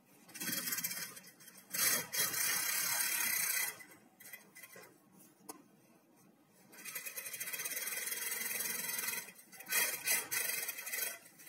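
Industrial PFAFF sewing machine stitching a seam in knit sweatpant fabric in separate runs: a short one at the start, a steady run of about two seconds, a pause, then another of about two and a half seconds, with a few short bursts near the end.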